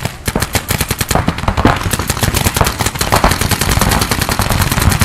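Several paintball markers firing at once: fast strings of shots from different guns overlap into a dense, unbroken stream of many shots a second.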